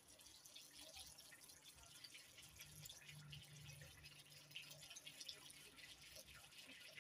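Water pouring in a thin, faint stream from a plastic jerry can into a plastic basin of detergent mixture, trickling and dripping.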